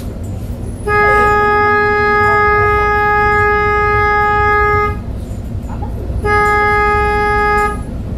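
A vehicle horn honking: one long blast of about four seconds, then a shorter blast of about a second and a half, each held on a single steady pitch, over the low rumble of traffic.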